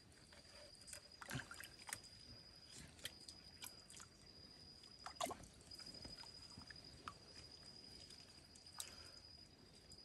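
Near silence: a few faint, scattered clicks and rustles of hands working a rubber strip over the end of a plastic pipe, with a steady high thin whine behind them.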